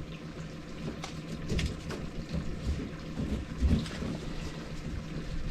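Handling noise from a mud crab being pulled out and held: a few light clicks and scrapes and a dull knock a little under four seconds in, over a steady low rumble.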